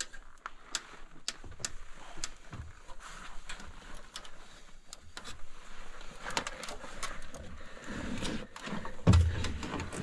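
Someone climbing down a wooden mine ladder: scattered clicks, knocks and scuffs of hands and boots on the wooden rungs and rails, growing busier toward the end, with a heavier thump about nine seconds in.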